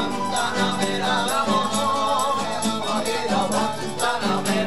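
Small Mexican band playing live, voices singing over strummed acoustic guitars.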